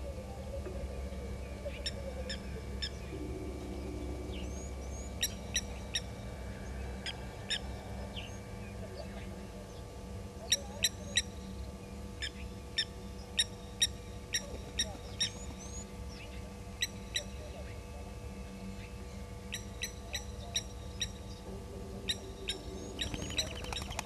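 Blacksmith lapwing calling: short, sharp, metallic 'tink' notes, singly and in quick runs, thickest about halfway through. A steady low hum runs beneath.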